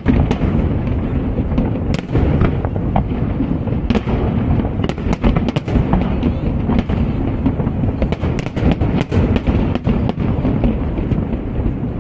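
Fireworks display in full barrage: many sharp cracks and bangs in quick, overlapping succession over a continuous low rumble of booms.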